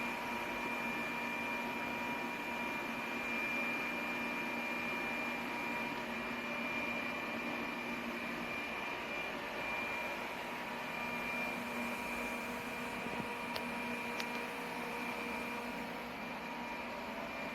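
Lefant M1 robot vacuum cleaner running: a steady whir of its motor and fan with a thin high whine over it, and a couple of faint ticks near the end.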